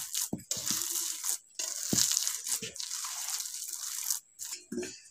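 A hand kneading and squeezing a coarse, damp urad dal bari mixture in an aluminium bowl: repeated wet crunching and squishing strokes with brief pauses, loudest about two seconds in.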